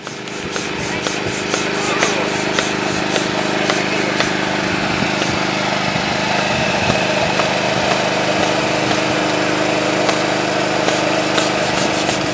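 An engine running steadily at a constant speed, starting and stopping abruptly, with a fast light ticking over it for the first few seconds.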